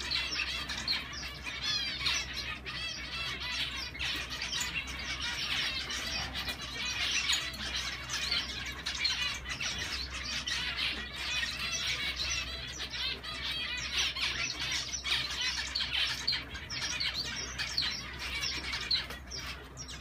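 Zebra finches calling: a continuous chatter of many short chirps from several birds.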